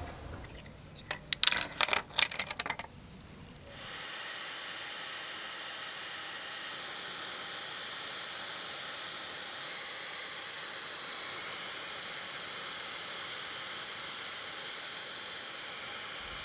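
Brass spoon blanks clinking together several times, then a heat gun blowing with a steady hiss from about four seconds in.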